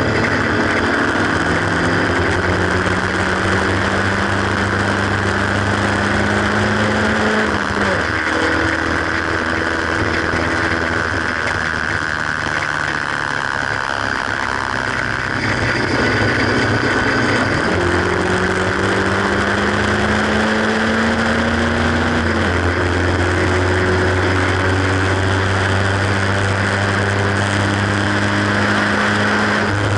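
Onboard sound of a Haynes Roadster kit car's 1.8-litre engine under way, its revs climbing steadily and then falling away twice, the second time settling to a steady note, over constant wind rush in the open cockpit.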